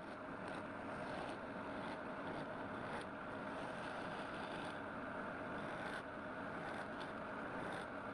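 Wood lathe running steadily, a constant motor hum with a noisy hiss from the spinning work.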